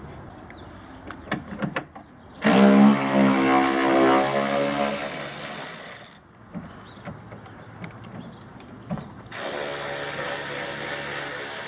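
A cordless power tool's motor whines in two runs of about three to four seconds each, with a few small clicks of hardware between them.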